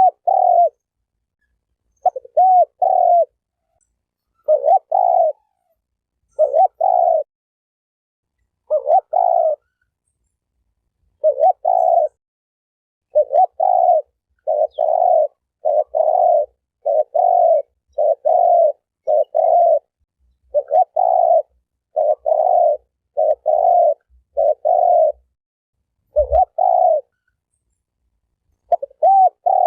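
Spotted dove (terkukur) cooing: short coo notes repeated in pairs and runs, with dead silence between the phrases. A brief low thump near the end.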